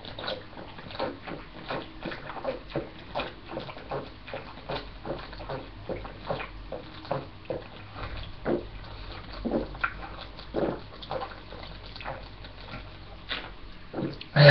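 A person gulping down sparkling grape juice in a long run of swallows, about two to three gulps a second.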